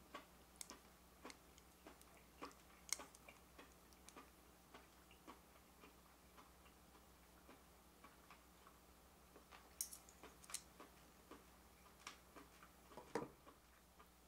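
Faint, scattered clicks and taps of plastic chopsticks against an open metal food can as pieces are lifted out, with a louder knock near the end.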